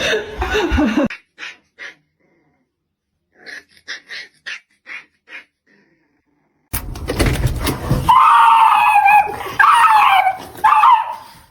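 A dog giving a quick run of about five short yelps, then, after a pause, long wavering high-pitched whines.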